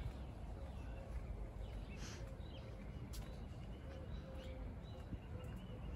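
Scattered short bird chirps over quiet outdoor ambience with a low wind rumble on the microphone.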